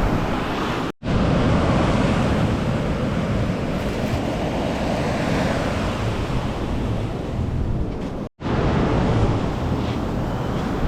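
Ocean surf breaking on a beach, with wind buffeting the microphone. The sound drops out completely for an instant twice, about a second in and near eight seconds in.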